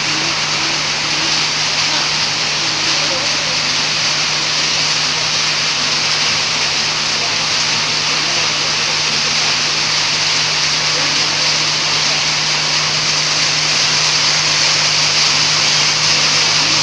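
Heavy rain falling in a steady, unbroken hiss, with a steady low hum underneath.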